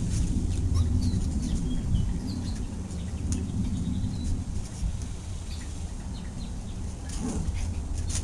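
Puppies crowding and squeezing through a dog door: soft scuffling and a few clicks, with short faint high chirps now and then over a steady low rumble.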